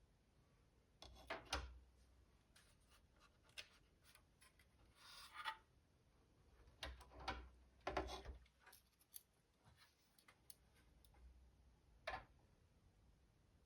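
Faint handling noises: scattered clicks and short rubbing or scraping sounds, the loudest clusters about a second in, around seven to eight seconds in, and one sharp click about twelve seconds in.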